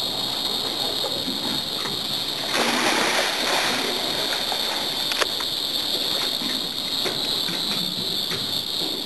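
A scuba diver drops off a boat's stern step into the water, making a splash about two and a half seconds in, over a steady high-pitched hum.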